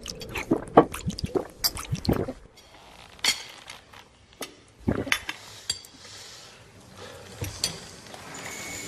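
Glassware clinking and liquid being poured. A quick run of sharp clinks comes in the first couple of seconds, then a few single clinks further apart.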